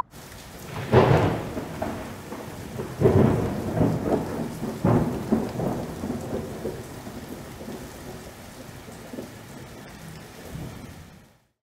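Thunder rumbling over steady rain, with loud claps about one, three and five seconds in that each roll away, the storm fading out near the end.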